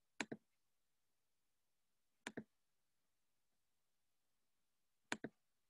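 Three computer mouse clicks, about two to three seconds apart, each a quick press-and-release pair, in near silence: clicking through the screen to stop a Zoom screen share.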